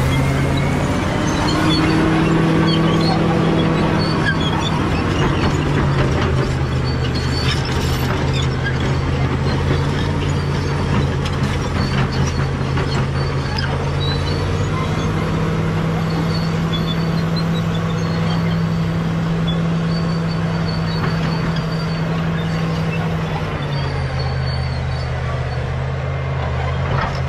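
Caterpillar D7G bulldozer's diesel engine running under load. Its pitch steps up about halfway through and drops back near the end, with scattered sharp clanks and cracks over it.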